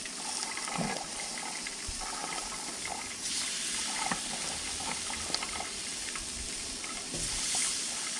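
Walleye fillets sizzling in butter on a hot Blackstone flat-top griddle, a steady hiss that swells about three seconds in and again near the end as fresh fillets are laid on the hot surface.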